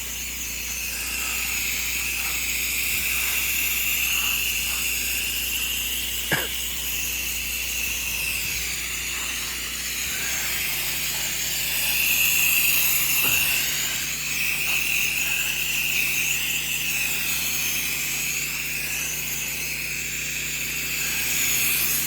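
Steady hiss of a soft-wash hose nozzle spraying chlorine wash solution onto house siding, with a low, even pump hum underneath.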